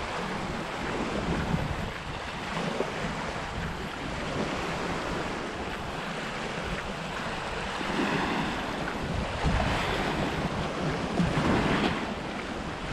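Sea surf washing on a rocky shore, with wind buffeting the microphone; the waves surge louder a few times in the second half.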